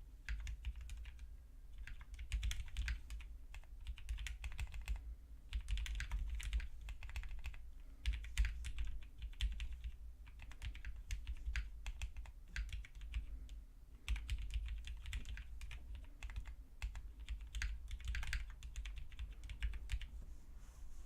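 Typing on a prototype IDB 60 mechanical keyboard with Greetech Red linear stems in retooled Cherry switch housings: quick runs of key clicks and bottoming-out taps, broken by short pauses.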